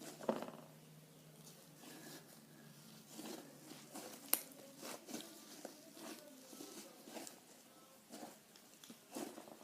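Butter slime being squeezed and stretched by hand, faint sticky clicks and squelches at an irregular pace.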